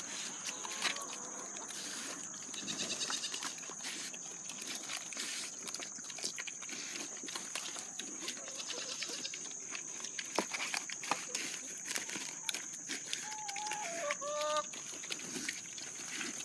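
Three American Guinea Hogs chewing and rooting through vegetable scraps in a feed pan on muddy ground: a scatter of small wet clicks and knocks. A short animal call comes about a second in and again near the end, over a steady high whine.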